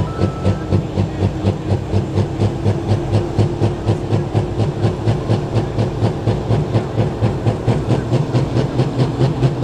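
Pro stock pulling tractor's turbocharged diesel engine idling with a rhythmic lope, about four pulses a second, over a steady hiss, hooked up and waiting to pull.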